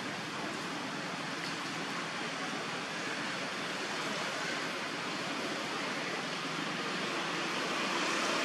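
Steady rush of muddy, rain-swollen water.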